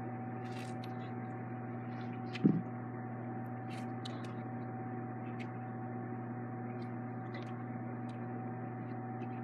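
Steady low electrical hum with a fainter higher tone above it. One short knock comes about two and a half seconds in, and a few faint clicks are scattered through.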